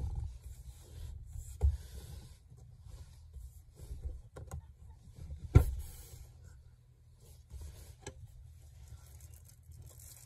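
Folding rear seatback of a Dodge car being worked down by hand: rumbling handling noise with scattered clicks and knocks, the loudest a sharp thump about five and a half seconds in.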